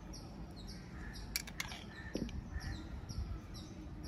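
A small bird chirping over and over, short high notes about twice a second, over a low steady background rumble. A couple of light clicks come about a second and a half in.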